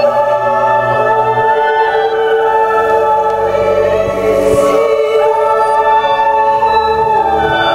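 A woman singing long held notes over a choir-like chord of several other sustained tones, the pitches shifting slowly.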